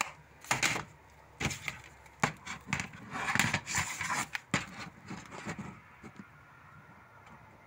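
Plastic DVD case being handled: a series of sharp clicks and knocks as the case is shut and turned over, with a rustling scrape about three to four seconds in. Quieter after about six seconds.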